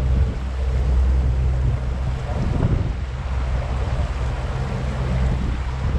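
Pontoon boat's motor running steadily as the boat cruises, a low drone under wind noise on the microphone and the rush of water along the hull.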